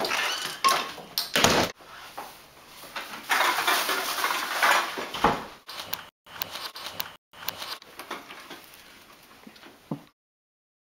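Closet door and handling noises: knocks, clicks and rustling as someone goes into the closet, broken by several abrupt drop-outs to dead silence near the end.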